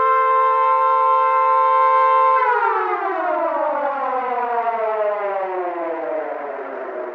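Civil defense siren sounding a steady chord, then about two and a half seconds in it winds down, falling steadily in pitch and fading.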